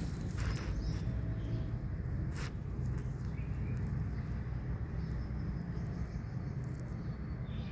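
Steady low rumble of background noise, with a couple of faint clicks in the first few seconds.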